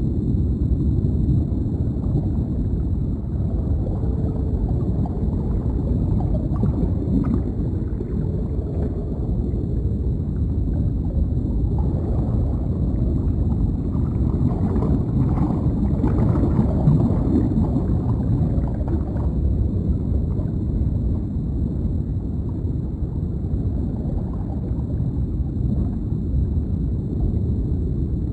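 Deep underwater ambience: a steady low rumble with bubbles gurgling through it. The bubbling gets busier and brighter for several seconds around the middle.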